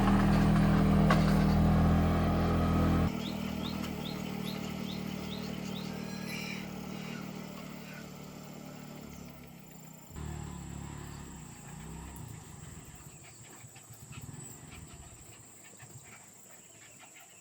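An engine running steadily, dropping off abruptly about three seconds in, then a fainter engine sound fading away.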